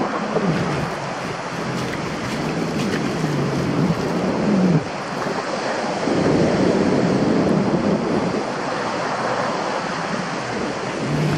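Sea surf washing over foam and wet sand, a steady rushing of water, with some wind noise. A low wavering tone runs under it and stops abruptly about five seconds in.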